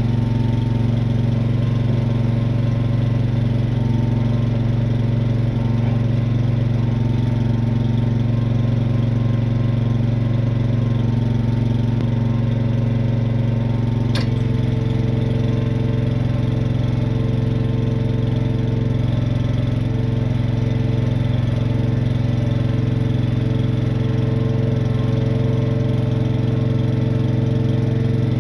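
Truck engine running steadily at idle. About halfway through there is a sharp click, and a steady higher whine joins the engine after it.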